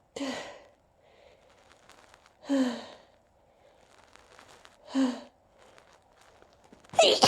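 A person's breath catching in three short, breathy gasps about two and a half seconds apart as a sneeze builds and is held back. Just before the end, a loud sneeze breaks out.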